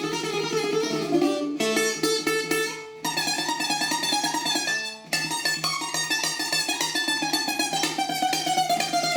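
Handmade Greek bouzouki played with a plectrum: a fast, densely picked melody with short breaks between phrases about one and a half, three and five seconds in.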